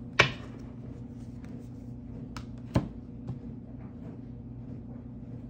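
Two sharp taps, one just after the start and a louder-sounding one near the middle, with a few faint ticks between them, over a steady low hum.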